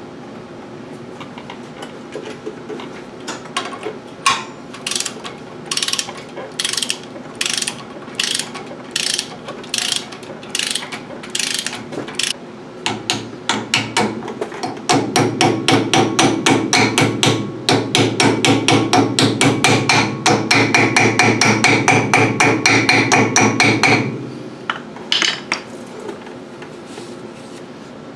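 Hand ratchet wrench tightening the spindle nut on a front disc brake hub. At first it gives single clicks about every half second, then a fast, even run of louder clicks that stops suddenly a few seconds before the end, followed by a couple more clicks.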